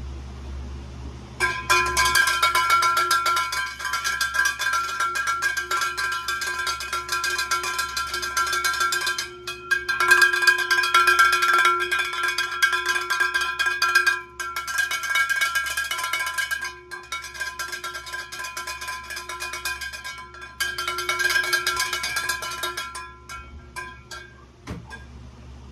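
A metal object rattled fast and continuously, ringing with a few steady metallic tones, in three long stretches with short breaks, stopping near the end.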